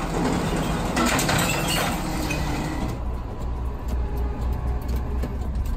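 Rubbish crashing and clattering as a bin is tipped into a front-loading garbage truck's hopper, strongest about one to two seconds in. The truck's engine and hydraulics keep running steadily under it and after it.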